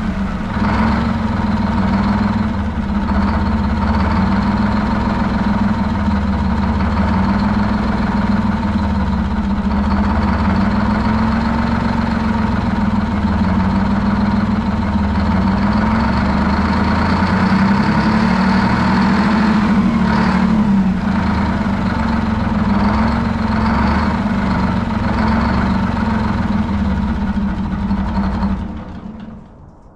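Detroit Diesel 12V71TT, a twin-turbocharged V12 two-stroke diesel on a generator set, running loud and steady. The sound falls away sharply near the end.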